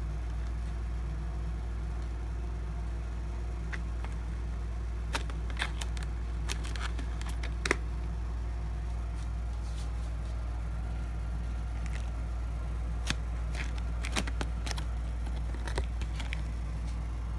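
Plastic catnip pouch being handled, giving scattered short crinkles and clicks over a steady low hum.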